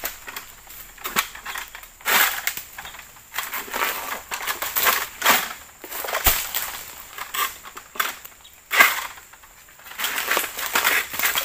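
Egrek harvesting pole's sickle cutting into oil palm fronds: repeated crunching and rustling scrapes, with a sharp crack about six seconds in.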